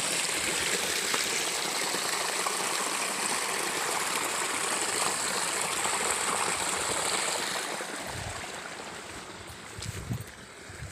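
Spring water pouring from a bamboo spout and splashing into a muddy hollow: a steady rush of water. It fades away over the last few seconds, with a few low bumps near the end.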